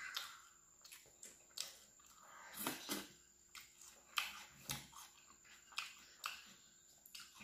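Close-up mouth sounds of eating rice and chicken curry by hand: chewing and lip smacks, heard as a scattered run of short, wet clicks.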